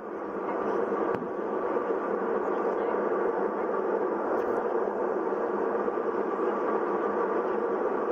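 Steady rushing cabin noise of an airliner in flight, engines and airflow heard from inside the cabin, with a faint steady hum.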